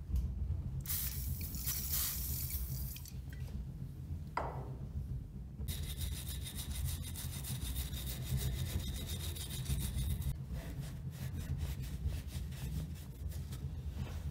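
Small hand wire brush scrubbing the rusty steel rod of an old grease gun clamped in a bench vise, in quick back-and-forth scratchy strokes from about halfway through, hardest for the first few seconds and then lighter. A brief hiss comes early on, and a steady low hum lies underneath throughout.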